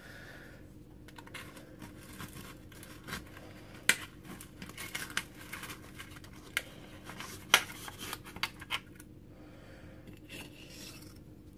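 A knife cutting a slice of baked cheesecake in an aluminium foil pie tin, scraping through the graham-cracker crust and against the foil, with crinkling and small clicks and two sharp ticks, about four and seven and a half seconds in.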